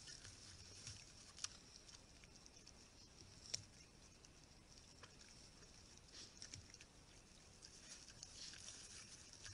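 Faint outdoor ambience recorded by a camera trap: a steady high hiss with scattered small clicks and rustles, two sharper clicks about a second and a half and three and a half seconds in.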